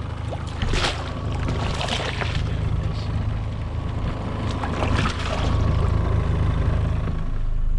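Water splashing several times, about one, two and five seconds in, as a hooked rainbow trout thrashes at the surface and is scooped into a landing net, over a steady low rumble from the boat.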